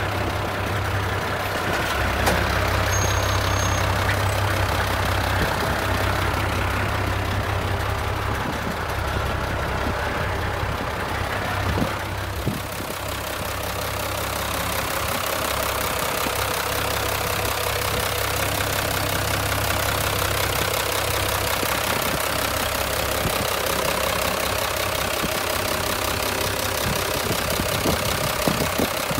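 Mitsubishi Fuso Fighter truck's 6D17 straight-six diesel engine idling steadily.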